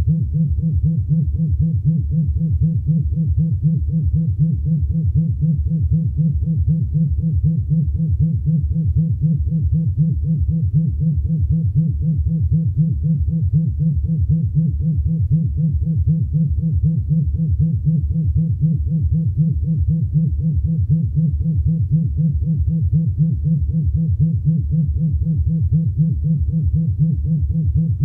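Low vibration buzz pulsing quickly and evenly without a break: a vibrator-style vibration pulse sound.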